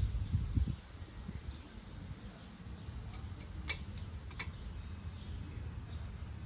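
Hand tools and caliper bolts clicking sharply a handful of times, irregularly, while a brake caliper is bolted back on, after a low rumbling knock at the start.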